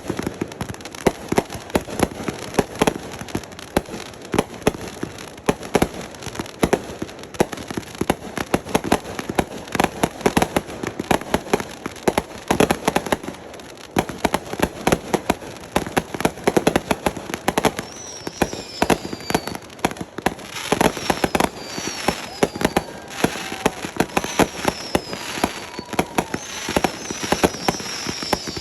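Fireworks going off in a rapid, dense string of bangs and crackles. In the second half, several short falling whistles sound over the bangs.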